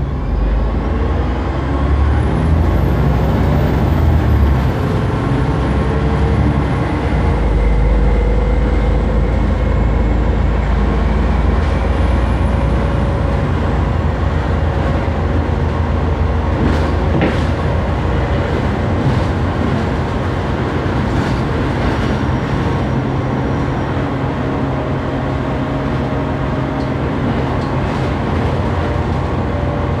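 Bus running under way, heard from inside the passenger saloon: a really loud, steady low engine drone. A mid-pitched tone climbs slowly over the first half, and a thin high whine rises and falls a few seconds in and again about twelve seconds in.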